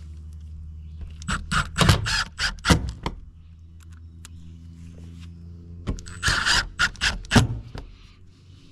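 Two quick runs of sharp knocks and scrapes on steel roofing panels, about half a dozen hits each, the first about a second in and the second near the end. A steady low hum runs underneath.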